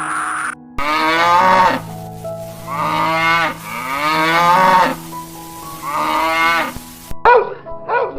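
Cow mooing: four long, drawn-out calls of about a second each, falling in pitch, over steady background music. Near the end a dog starts barking in short, quick barks.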